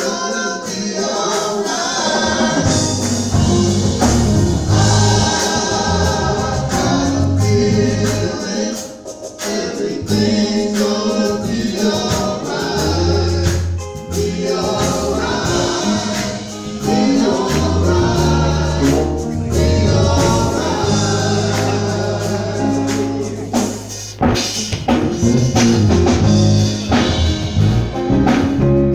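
Gospel vocal group of men and women singing together into microphones, over a band accompaniment with a deep, sustained bass line and a steady beat.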